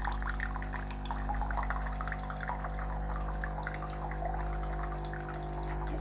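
A Bosch Tassimo pod coffee machine running its cleaning cycle with the yellow cleaning disc. Hot water spurts and trickles into a mug with a steady hum from the machine.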